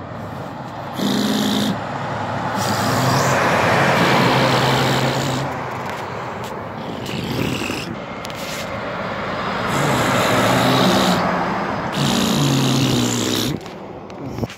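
Motor vehicles driving past on the street: tyre and engine noise with a low hum, swelling twice, about four seconds in and again about eleven seconds in.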